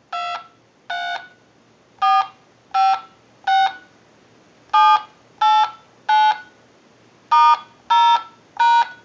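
DTMF touch tones from a TS22 lineman's buttset being dialed with its amplifier on: eleven short two-tone beeps, one per key press, in an uneven rhythm, the first two softer than the rest.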